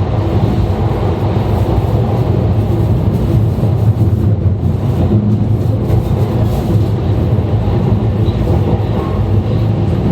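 E2 series Shinkansen train running, heard from a car's vestibule: a steady rumble of wheels on rails, even throughout.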